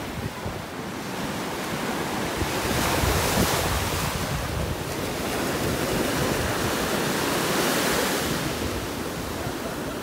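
Waves of a fairly calm sea washing ashore, a steady wash that swells and eases, with wind rumbling on the microphone.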